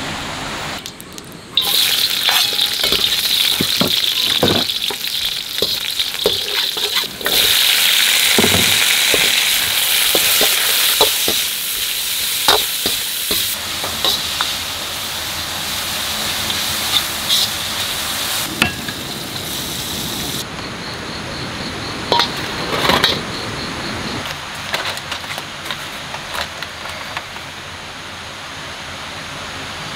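Food sizzling in a hot wok as it is stir-fried, with a metal spatula clicking and scraping against the wok. The sizzle starts about a second and a half in and dies down over the last few seconds.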